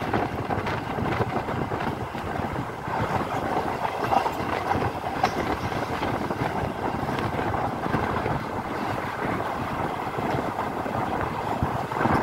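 A passenger train coach of the Pamani Express running at speed, heard from an open window. There is a steady rumble of wheels on rails, with a few short clicks scattered through it.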